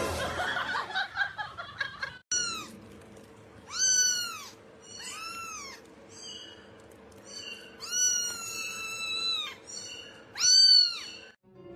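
Domestic cat meowing repeatedly, about seven meows with one long drawn-out meow in the second half and the loudest meow coming last.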